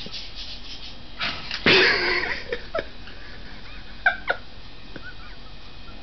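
Pet birds, a cockatiel and a red-rumped parakeet, calling: a loud, harsh squawk lasting about a second, starting just over a second in, followed by a few short chirps.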